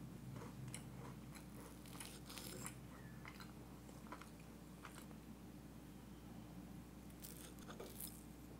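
A fork cutting down through an Oreo cheesecake bar, the crushed-Oreo crust crunching in short, quiet crackles in two spells, over a low steady hum.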